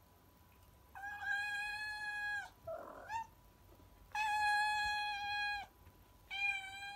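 Domestic cat meowing: three long, level meows of about a second and a half each, with a short, rougher call between the first two.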